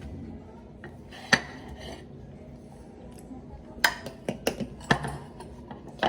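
Dishes and utensils knocking and clinking in a kitchen: one sharp clink about a second in, then a quick run of several more near the end.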